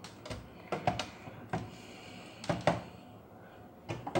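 Plastic 20 V cordless-tool battery packs being handled and set down on a table: a string of short, sharp clicks and knocks.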